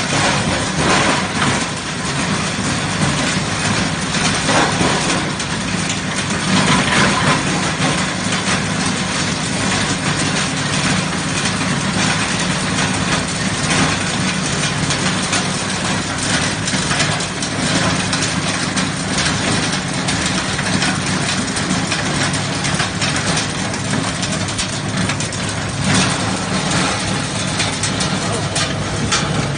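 Bone grinding machine running loudly, a steady motor hum under constant irregular crackling and crunching as its impact knife and fixed knife crush bone.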